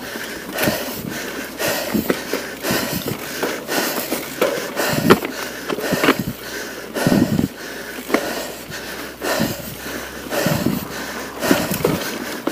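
Mountain bike rolling over rough dirt singletrack, with tyres crunching and frequent short knocks and rattles from the bike. The rider breathes hard on the climb.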